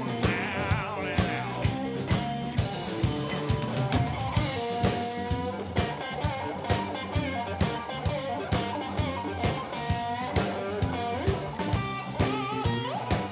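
Blues-rock band playing an instrumental passage: electric guitar lead with wavering, bent notes over a steady drum beat and bass.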